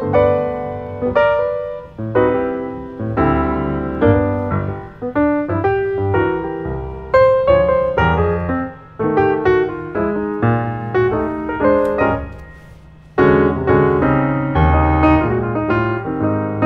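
Piano music: chords and a melody of struck notes that ring and fade over low bass notes. It nearly dies away about twelve seconds in, then starts up again.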